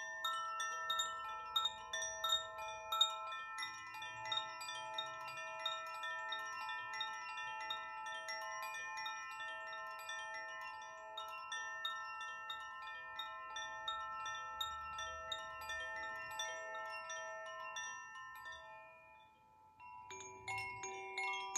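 Two handheld bamboo-tube chimes, one swayed in each hand, tinkling steadily with many overlapping ringing tones. They fade out about nineteen seconds in, and about a second later a single chime starts with a different, lower set of notes.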